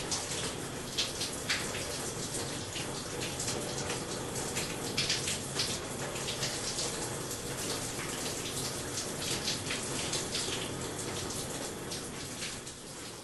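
Shower water running steadily onto a person and the tiled floor, with irregular splashes and spatters as the body moves under the spray; the running water eases off a little near the end.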